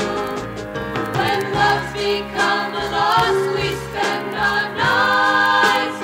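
Female vocal group singing with music, played from a 1975 vinyl LP.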